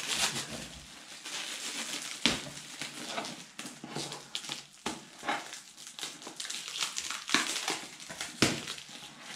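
Plastic wrapping crinkling and rustling as a parcel is cut and pulled open with a knife, the cardboard box inside scraping against it, with a few sharp clicks along the way.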